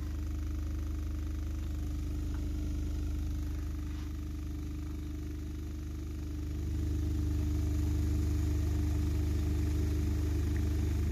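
12-inch Aura Indigo subwoofer playing a steady 25 Hz test tone, a deep hum with its overtones. It gets louder about six and a half seconds in as the amplifier gain is turned up toward maximum.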